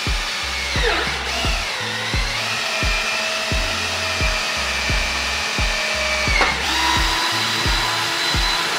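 Cordless drill boring a hole through a PVC pipe fitting. The motor whine dips in pitch about a second in as the bit bites, then shifts to a different steady pitch about two-thirds of the way through. Background music with a steady beat plays underneath.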